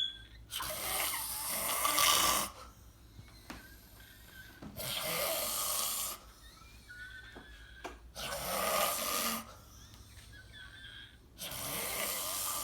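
A sleeping person snoring: four long snores about three and a half seconds apart, each lasting one to two seconds.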